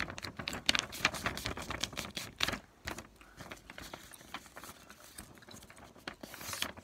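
A sheet of paper being folded and creased by hand close to the microphone: a run of short crinkles, taps and scrapes.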